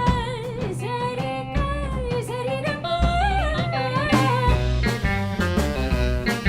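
Band music: a melody line with heavy vibrato wavers and rises over a bass line for about four seconds, then gives way to short, repeated staccato notes.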